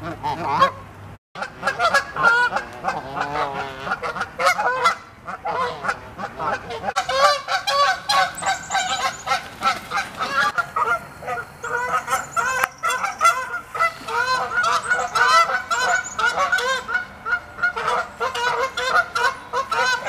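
A group of Canada geese honking loudly and almost without pause, many calls overlapping: the agitated honking of geese squabbling and charging at each other.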